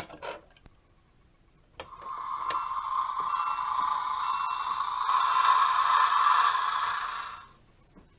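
Dickie Toys battery-powered toy recycling truck playing its electronic sound effect through its small speaker: after a click about two seconds in, a buzzy truck noise with repeated short beeps that stops sharply near the end.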